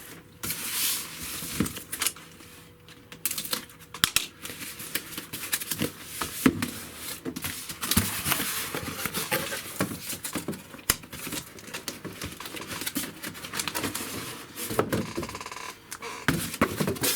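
Handling and opening a cardboard delivery box and its packaging: a run of irregular clicks, knocks, scrapes and rustles.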